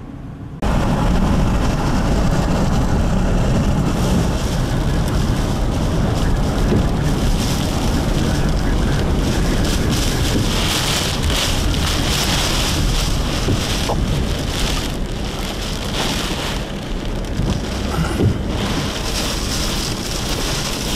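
Heavy wind buffeting the microphone, mixed with rain and road noise, while driving through a severe thunderstorm. It starts abruptly about half a second in, and a hiss of rain grows stronger from about halfway.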